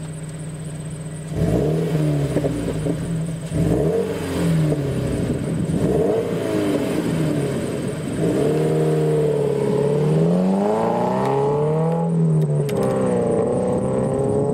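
Boxer four-cylinder engine of a Scion FR-S/Subaru BRZ fitted with a Corsa cat-back exhaust. It idles briefly, then is revved again and again, the pitch rising and falling with each rev.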